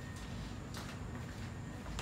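A few short footsteps as a person walks away, the firmest about three-quarters of a second in, over a steady low room hum.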